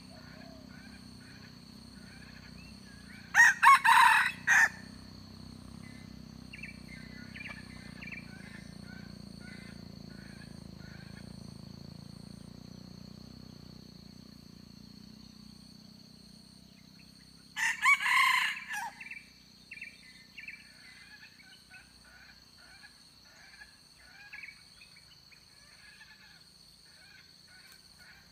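Junglefowl rooster crowing twice, one crow about three and a half seconds in and another about fourteen seconds later. Each crow lasts about a second. Between them a steady high-pitched hum and faint chirping carry on.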